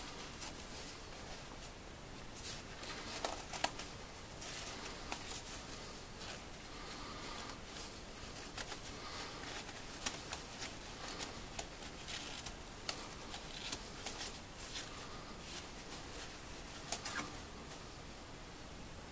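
Quilted nylon coat fabric rustling and crinkling as it is handled, with a few sharper clicks.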